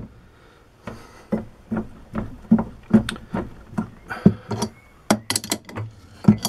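Irregular metallic clicks and knocks, one or two a second, as the chuck of a 100-year-old lathe is turned by hand with a spanner to work a 5/8 UNF tap in a cast-iron hand wheel.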